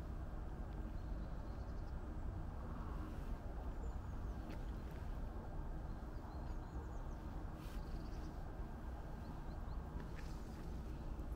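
Quiet outdoor ambience: a steady low rumble and hiss, with a few faint high bird chirps and some soft clicks.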